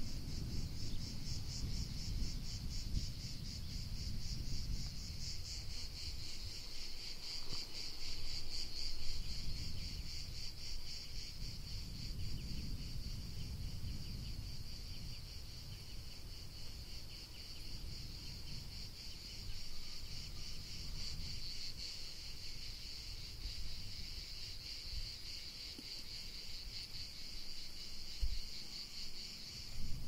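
A chorus of summer insects chirring steadily, a high, fast-pulsing trill that never lets up, over a low, shifting rumble.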